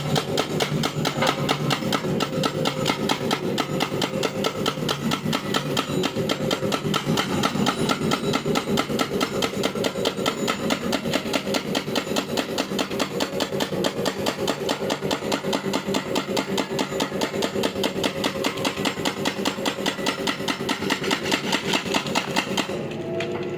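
Excavator running with a steady drone and a rapid, even pulsing of about four to five beats a second.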